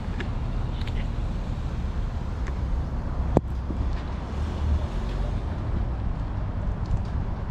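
Steady low outdoor rumble of background street noise, with a single sharp click a little past the middle.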